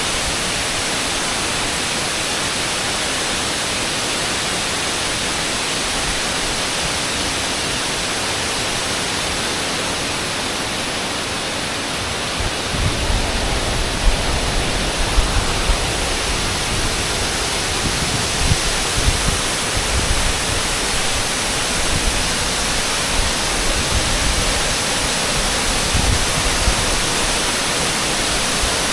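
Waterfall's steady rush of falling water. From about halfway, irregular low rumbling bumps come and go over it.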